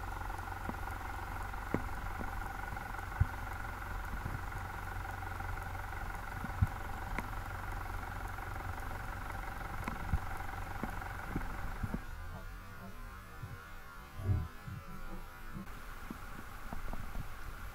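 Underwater sound at a diver's camera: a steady mechanical whine over a low rumble, with scattered faint clicks. The whine drops away for about three seconds past the middle, then returns.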